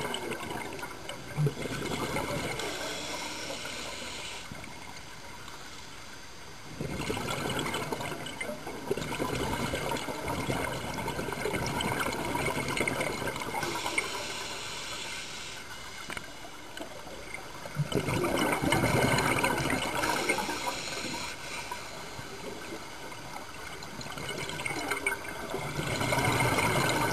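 Scuba diver breathing underwater through a regulator: bursts of bubbling noise alternate with quieter hissing stretches in a slow cycle that repeats every several seconds.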